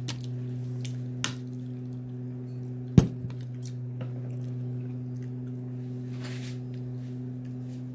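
A drinking glass set down on a hard surface with a single sharp knock about three seconds in, over a steady low hum and a few soft clicks.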